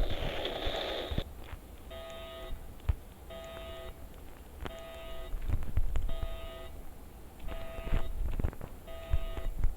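An electronic tone sounding in short bursts, six times at an even pace of about one every second and a half, over low thumps. It opens with a brief loud rush of noise lasting about a second.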